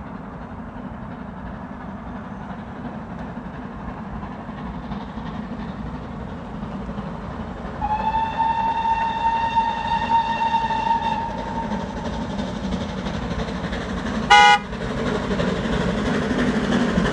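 GWR Castle-class steam locomotive 7029 Clun Castle approaching, its running noise growing steadily louder. About halfway through it sounds one long whistle of around three seconds, and a few seconds later a short, loud toot.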